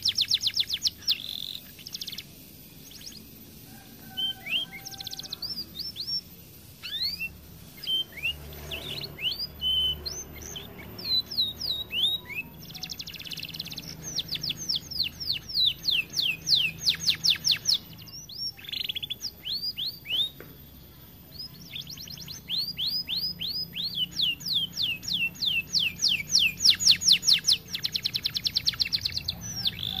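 Domestic canary singing: rapid trills of quick repeated high notes, in phrases a few seconds long with short pauses between.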